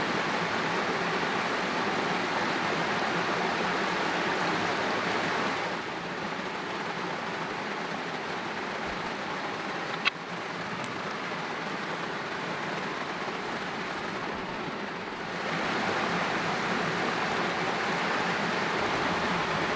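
Creek water rushing steadily. About six seconds in it turns quieter and duller for roughly ten seconds, then comes back to full strength. There is one sharp click near the middle.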